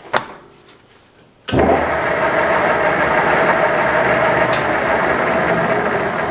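A click, then about a second and a half in, the motor of a homemade surface grinder is switched on and runs loudly and steadily with a constant hum.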